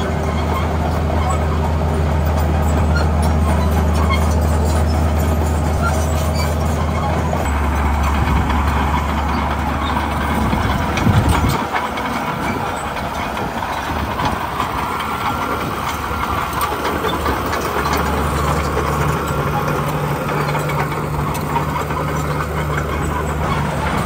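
Heavy diesel engines of road-building machinery running over a steady rumble. The low engine drone shifts about seven seconds in, drops away around eleven seconds, and comes back steady near eighteen seconds.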